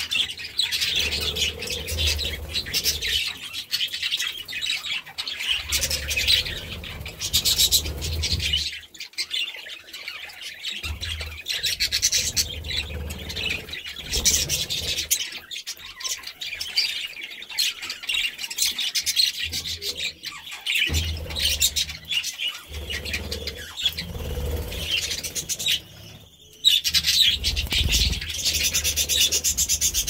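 A flock of budgerigars chirping and chattering without a break, with a short lull near the end before the chatter picks up again.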